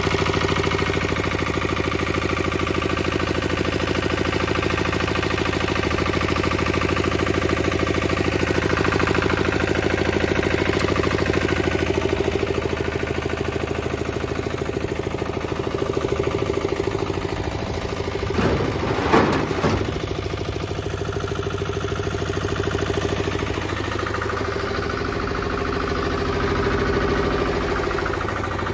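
Goldoni Export two-wheel tractor's Lombardini LDA 96 single-cylinder air-cooled diesel idling steadily. A brief rush of noise comes about two-thirds of the way through.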